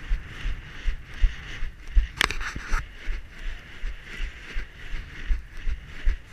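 Hurried footsteps through wet grass jolting a body-worn action camera, with low thumps about two or three a second over a steady rustle. A single sharp click about two seconds in.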